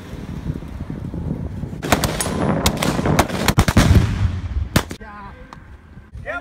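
A rapid volley of rifle gunfire from several shooters, starting about two seconds in and stopping about five seconds in, with a heavy blast of an explosive charge among the shots near its middle.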